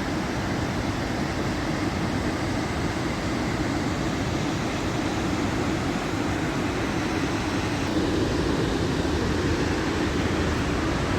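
Waterfall's falling water, a steady, even rushing noise that grows a little louder near the end.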